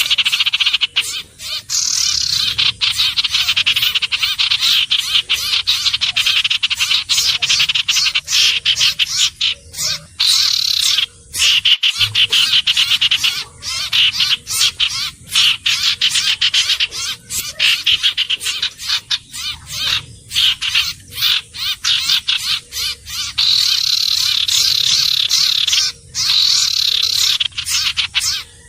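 Common iora calling in a loud, rapid, nearly continuous chattering trill, broken by brief pauses.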